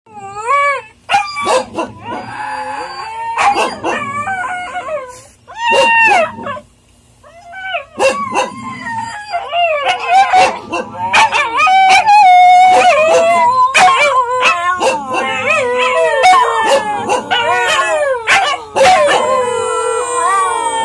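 Two red-and-white husky puppies howling, their pitch wavering up and down. The howls overlap more and more as they go, with a short lull about seven seconds in.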